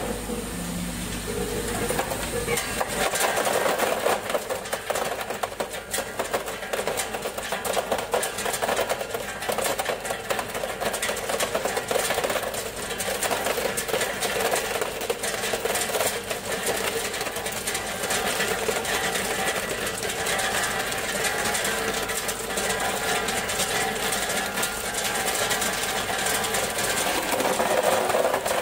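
Solid ice tubes clattering in a rapid, continuous patter as a tube ice machine harvests, dropping them from its outlet into a plastic basin of water. A steady mechanical hum runs underneath.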